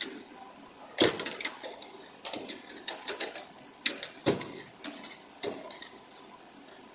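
A husky's claws clicking and paws thumping on wooden deck boards as it bounds and lunges around, a scatter of sharp clicks with heavier thumps about a second in and again around four seconds in.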